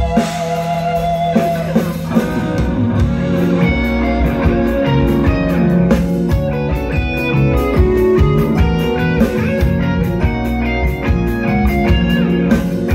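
A rock band playing live: electric guitars over bass and drums, holding a chord for the first second or so before the band plays on.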